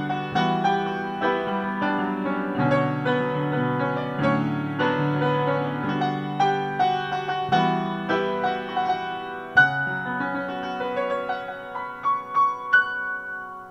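Upright piano being played: a continuous run of notes over low chords. Near the end a few high notes are struck and left ringing as the playing stops.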